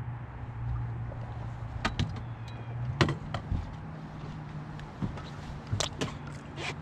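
A bass boat's electric trolling motor humming steadily, with several sharp knocks and clunks of feet and gear on the boat's deck.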